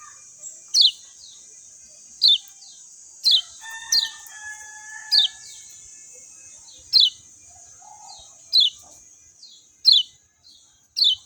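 Kecial kuning (lemon-bellied white-eye) calling: a series of sharp, high, downward-slurred chirps, about one every second or so, with softer chirps in between, over a steady high hiss. A faint, lower, drawn-out call sounds briefly near the middle.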